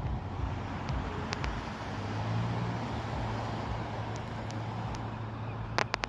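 Steady road-traffic noise, with a low engine hum that grows stronger about two seconds in. A few sharp clicks near the end.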